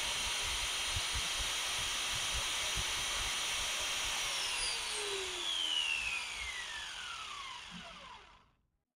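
Makita 9554NB angle grinder's brushed universal motor running at full speed with a steady high whine after its burned armature was replaced. About four seconds in it is switched off and winds down, its pitch falling until it stops near the end.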